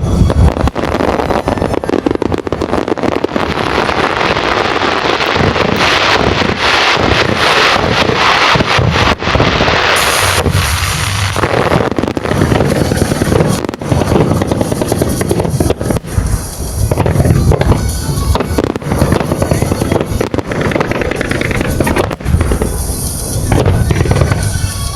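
Aerial fireworks going off in a dense barrage, loud booms and bangs overlapping with crackling, with music playing over the top.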